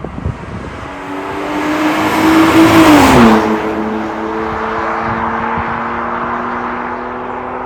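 BMW M54B22 2.2-litre inline-six breathing through an MS-R valved aftermarket exhaust: the engine revs up to a peak about three seconds in, drops back quickly and settles into a steady idle.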